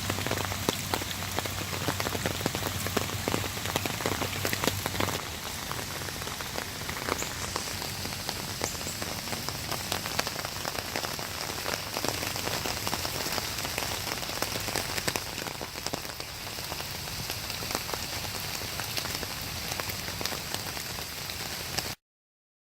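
Steady water noise full of fine patter and splashes, from rain or fast, flooded creek water, with a low hum under it for the first five seconds. It cuts off suddenly near the end.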